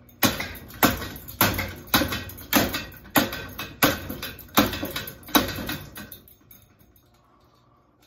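Hammer striking a ceiling fan's motor housing over and over, about ten blows roughly two a second, stopping about six seconds in.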